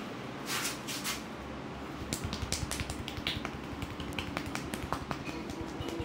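Hands massaging a man's head: a couple of brushing rubs over the hair, then from about two seconds in a quick run of sharp finger taps and pats on the scalp and forehead.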